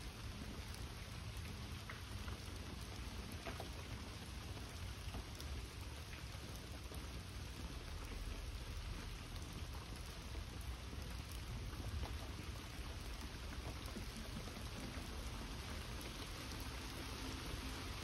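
Steady rainfall, with scattered single drops ticking close by.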